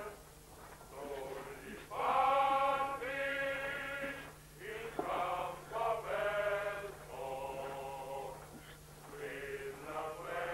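Male voices singing together in slow chant-like phrases: long held notes, each phrase a second or two, with short breaks between.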